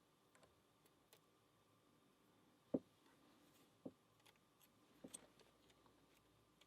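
Faint, scattered metallic clicks of a lock pick and tension wrench working inside a six-pin pin-tumbler lock, with one sharper click about three seconds in and a couple more a second and two seconds later.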